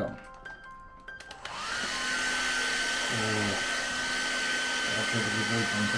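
Hot-air blower switching on about a second and a half in. Its motor whine rises and settles into a steady rushing hiss with a high tone. It is heating the phone's back to soften the camera glass adhesive.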